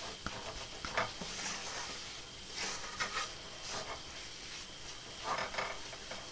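A wooden spatula stirs and scrapes a thick, crumbly ragi-flour and jaggery mixture around a metal kadhai, in irregular short scraping strokes over a faint hiss. The mixture is cooked through and leaving the sides of the pan.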